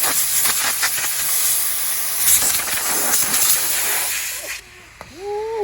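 Loud, steady hissing noise that cuts off abruptly about four and a half seconds in.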